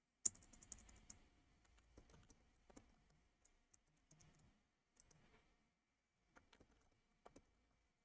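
Faint computer keyboard keystrokes while a password is typed: a quick run of clicks near the start, then single, spaced-out key presses.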